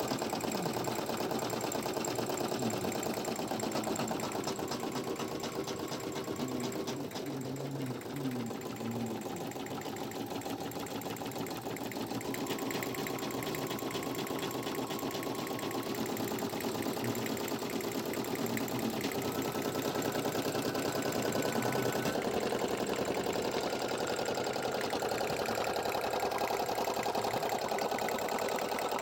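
Brother PE800 computerized embroidery machine stitching steadily, its needle running in a fast, even rhythm as it sews the fill of a patch.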